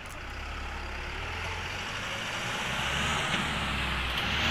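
Boeing 777-300ER's GE90 turbofan engines running as the airliner rolls along the ground, a steady jet rush with a low hum that grows steadily louder.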